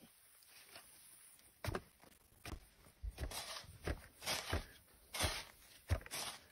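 Dull, irregular thuds of earth being packed and rammed into a hand brick mould with a heavy wooden pole, roughly one to two a second, starting about a second and a half in.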